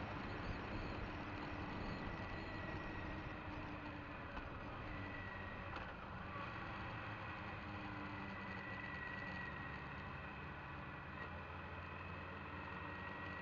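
Motorcycle under way at road speed, heard from a camera mounted on the bike: a steady engine note mixed with wind rush, with a faint high whine throughout.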